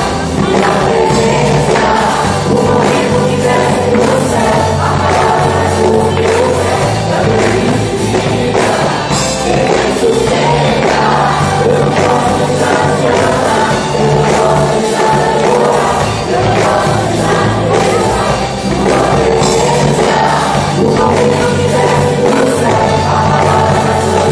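Live gospel worship music: a band playing steadily with a group of voices singing.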